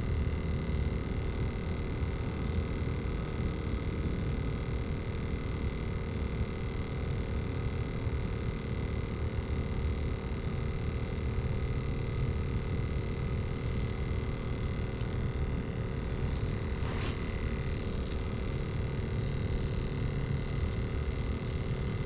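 Steady low rumble with a constant whine, typical of a kayak's electric trolling motor running, with one light click about 17 seconds in.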